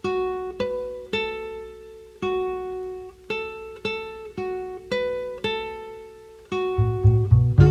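Acoustic guitar playing a song intro: single picked notes that ring and fade one after another, then fuller playing with bass notes coming in about six and a half seconds in.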